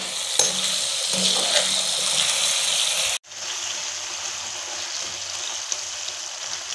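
Potato slices sizzling steadily in hot oil in a pan, stirred with a metal slotted spoon, with a few light clicks from the spoon against the pan. About three seconds in, the sizzle cuts out abruptly and comes back quieter.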